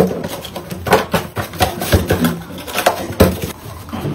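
Cardboard boxes being handled: a flat box blank folded and small boxes packed into a larger carton, with irregular knocks, taps and scuffs of cardboard.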